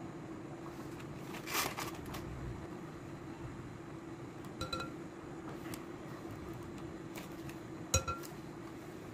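A glass mixing bowl clinking and ringing briefly twice as a wooden spoon taps against it while ground spice is added, the second clink the loudest. A brief rustle comes about a second and a half in, and a steady low hum runs underneath.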